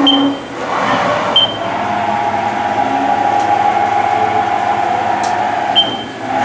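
Haas VF-5 CNC vertical machining center running through its paces under program. Its motors give a steady whine from about two seconds in that breaks off near the end, with short high chirps at the start, about a second and a half in, and near the end, as moves start and stop.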